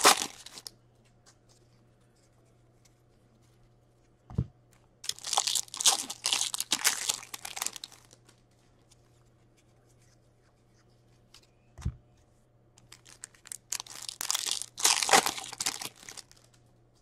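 Foil hockey-card pack wrappers being torn open and crinkled by hand in two bursts, about five seconds in and again near the end. A soft knock on the table comes just before each burst.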